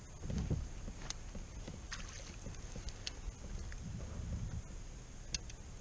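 Water lapping and sloshing against a fishing kayak's plastic hull in a low rumble, swelling about half a second in and again near the four-second mark, with a few light clicks and taps.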